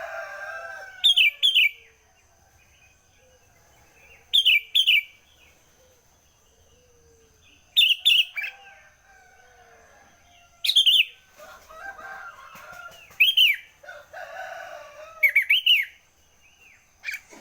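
Sooty-headed bulbul (kutilang) singing: six loud, short phrases of two or three quick notes each, repeated about every three seconds.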